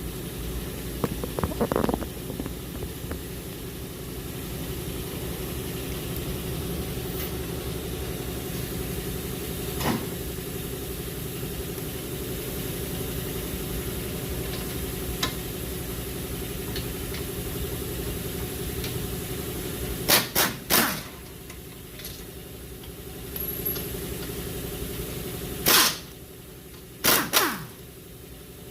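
Steady mechanical hum, then short bursts of a power wrench spinning an 18 mm swivel socket on the lower control arm bolts: three quick bursts about two-thirds of the way through, then one and then two more near the end, each winding down as it stops.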